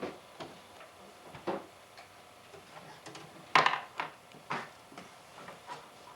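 A few scattered short knocks and clatters, the loudest about three and a half seconds in.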